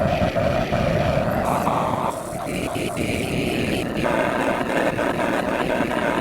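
Granular processor output: a dense, droning texture of many short overlapping grains cut from a recorded voice sample. It thins out about two seconds in and fills back in about four seconds in.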